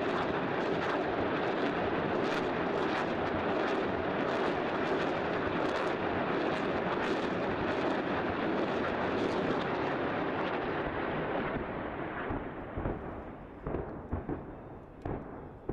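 Barrage of artillery shell explosions hitting a hillside: a dense run of overlapping blasts for about the first eleven seconds, then thinning to separate blasts spaced out toward the end.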